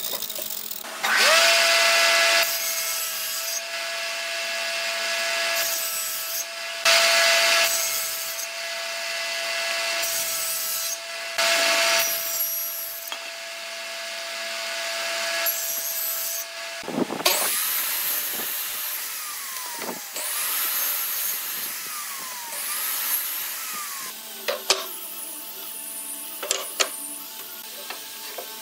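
Power woodworking machines cutting pine: a motor runs with a steady hum, broken several times by loud, short bursts of cutting as the tool bites into the wood. In the later part come a few falling sweeps and some sharp clicks and knocks.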